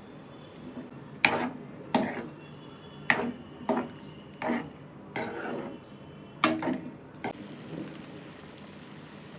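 Kitchen clatter: cookware and utensils knocked and set down, about eight sharp, irregular clanks with a brief ring after each.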